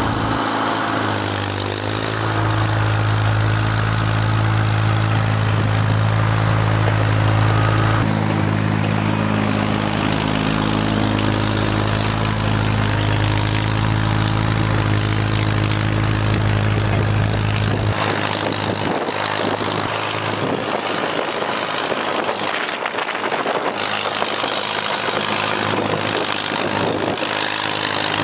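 Farm tractor engine running with a steady low note; about two-thirds of the way in the note turns rougher and noisier as the tractor works its way off across the snow.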